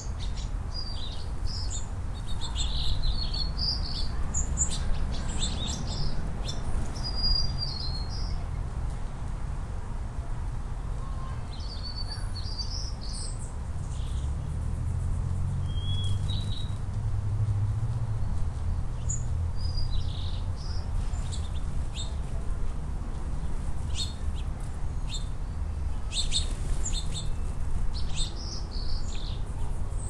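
Small songbirds chirping in short, high calls that come in clusters with quiet gaps between them, over a steady low rumble.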